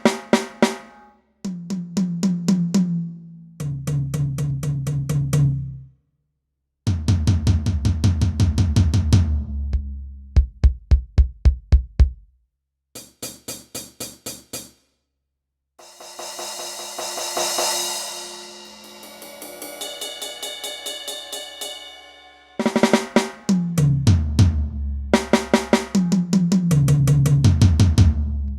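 Turbo Electronic TDX-16 electronic drum kit playing its 'Metal' kit sounds: drum grooves with fills running down the toms, a quick run of bass drum strokes, and a long crash cymbal ringing out in the middle, with a couple of short pauses between phrases.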